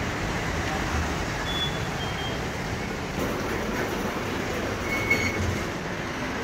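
Steady background noise of a busy BTS Skytrain station. About five seconds in, a short electronic beep sounds from a fare gate as a card is tapped on its reader.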